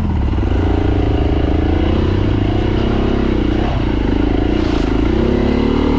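Beta 390RR enduro motorcycle's single-cylinder four-stroke engine, its revs rising and falling as the bike is worked through a rut on a dirt lane, with a brief dip a little past halfway.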